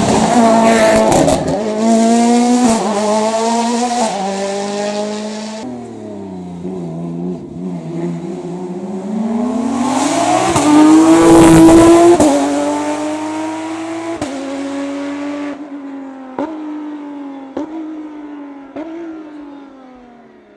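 Hillclimb race car engine at high revs, its pitch rising and dropping through gear changes as it approaches. It is loudest as it passes about eleven seconds in, then fades away, with a few sharp cracks on the shifts as it goes.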